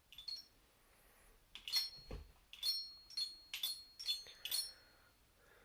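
Mini xylophone bars struck in a quick irregular run of about nine high ringing notes, with a soft low thump about two seconds in.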